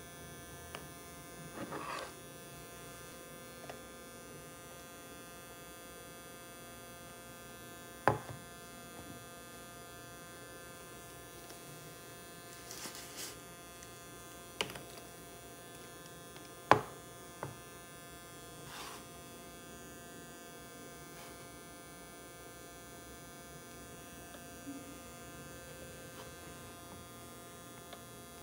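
Homemade SG3525 inverter's rewound microwave-oven transformer humming faintly and steadily with a buzzy tone while running with no load. A few sharp knocks and clicks from handling plugs and cables, the loudest about 8 and 17 seconds in.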